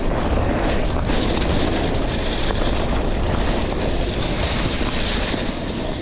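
Steady rushing noise of wind on the microphone and tyres rolling on a dirt trail during a mountain-bike ride, with a few sharp clicks in the first second.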